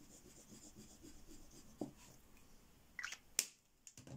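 Kingart gel crayon rubbed across paper in a short swatch, a faint scratchy scrubbing, then a few sharp clicks about three seconds in as the crayon's snap-on cap is put back on.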